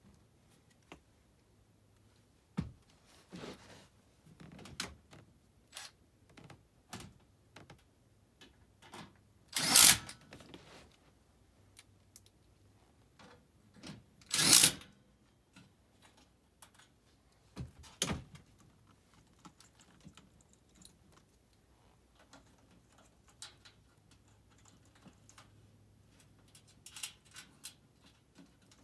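Small clicks, taps and clatter of tools and sheet-metal parts being handled at an air handler's blower compartment during an ECM blower motor swap, with two louder half-second rattling bursts about ten and fifteen seconds in.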